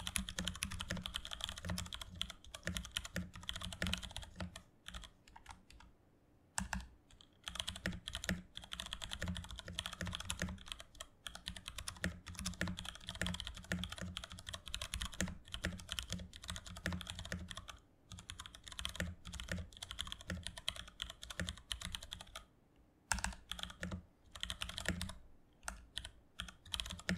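Typing sound test on a Varmilo VA87M tenkeyless mechanical keyboard with Cherry MX Brown switches and double-shot PBT keycaps. Quick, dense keystrokes come in runs broken by a few brief pauses. The board's stabilizers sound very thocky, and it has some slight ping.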